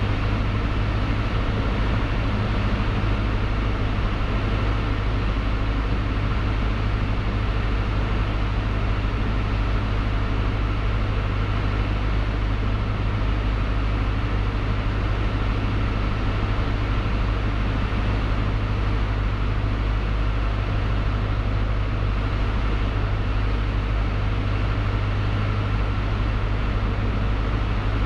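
Cessna 152's Lycoming O-235 four-cylinder engine and propeller running steadily in cruise flight, a constant drone heard from inside the cabin.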